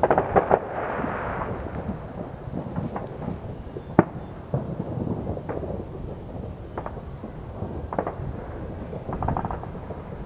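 Fireworks going off: a run of booms and sharp bangs over a continuous rumble, with crackling bursts near the start and near the end, and the loudest bang about four seconds in.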